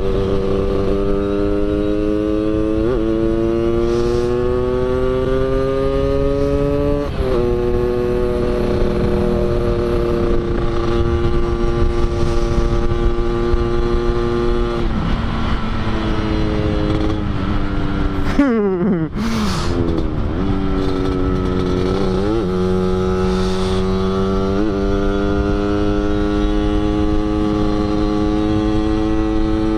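Yamaha RX-King's 135cc two-stroke single-cylinder engine with a Medan-style under-slung 'kolong' exhaust tuned for a growling 'ngorok' note, ridden hard. Its pitch climbs and then drops suddenly several times, as at gear changes. About two thirds of the way in the note falls away briefly, then climbs again.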